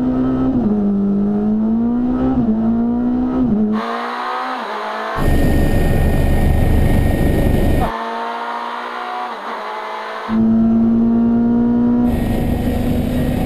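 Onboard sound of a Proton rally car's engine at high revs, its pitch climbing and dropping with gear changes. It cuts to the noise inside a helicopter cockpit, a steady high whine over heavy rotor and wind noise, then back to the rally car's engine holding steady revs.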